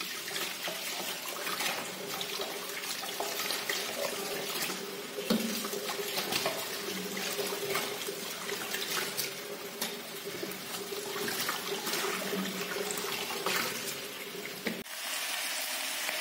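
Kitchen tap running into a stainless steel sink over a steel bowl of raw pork cubes, with splashing and small knocks as hands rub and turn the meat to wash it. Near the end the sound cuts to a steady hiss.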